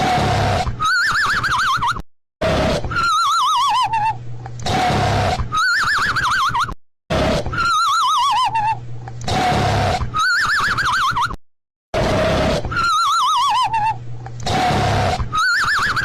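Cartoon snoring sound effect on a loop: rumbling snores, each with a wavering whistle, falling in pitch on one breath and rising on the next. The loop repeats about every four and a half seconds, and each pass cuts off abruptly into a brief silence.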